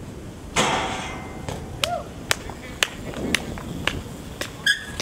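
A BMX bike slams onto a metal handrail during an attempted trick: a sudden loud metallic clang about half a second in that rings on briefly, followed by a string of sharp clicks and knocks roughly every half second.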